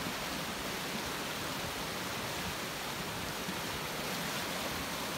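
Flash flood debris flow rushing down a desert wash: a steady, even rush of churning muddy water.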